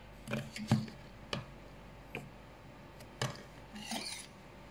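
A metal spoon knocking and clinking lightly against a Milo powder jar and a plastic measuring cup: about half a dozen scattered taps, the loudest under a second in, with a short scrape near the end.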